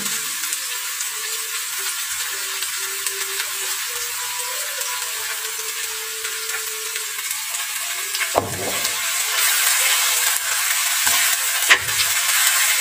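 Chopped shallots, garlic, red chillies and spring onion sizzling in oil in a wok as they are sautéed until fragrant. A wooden spatula knocks and scrapes against the pan about eight seconds in and again near the end, and the sizzle grows a little louder once the stirring starts.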